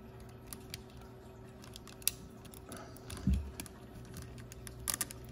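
Light, scattered clicks and taps of hard plastic parts being handled and pressed together on a small robot toy (Hasbro i-Dog pup), with a soft low bump a little past the middle and a few quick clicks near the end.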